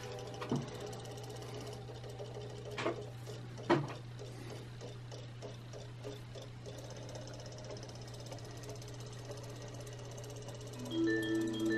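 Small battery motor of a Robo Fish Dory toy whirring steadily as it swims in a bowl of water, with a few short knocks. Marimba-like music comes in near the end.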